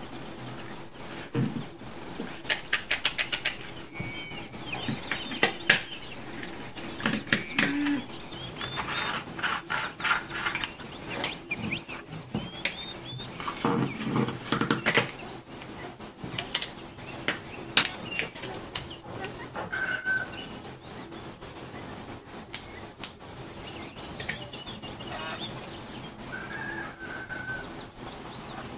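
Clicks, knocks and rattles of a plastic flashlight being unscrewed and taken apart by hand, with a quick run of clicks about three seconds in. Short bird chirps sound now and then in the background.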